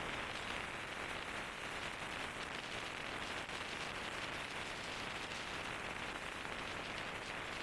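Steady rushing wind noise on the microphone of a scooter ridden at about 110–120 km/h, an even hiss with no distinct engine note.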